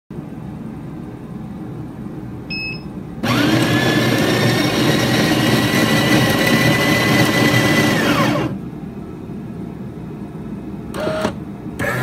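A short high electronic tone, then the Café Affetto espresso machine's built-in coffee grinder runs for about five seconds, grinding beans for an espresso. Its motor whine rises as it spins up and falls away as it stops, over a low steady machine hum.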